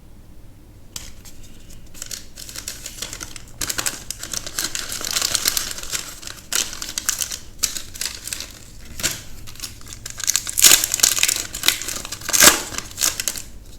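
Foil wrapper of a Magic: The Gathering set booster pack crinkling and being torn open by hand. Irregular crackling starts about a second in and is loudest near the end.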